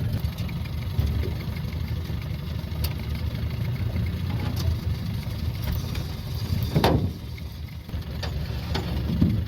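Small boat's outboard motor running at low speed, a steady low rumble, with a sharp knock about seven seconds in.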